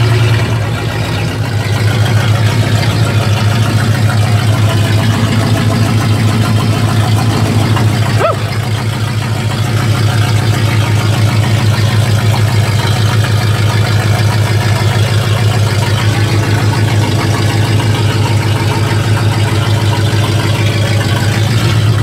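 Engine of a 1955 Pontiac truck running steadily, heard from inside the cab as a low, even drone. A brief squeak sounds about eight seconds in.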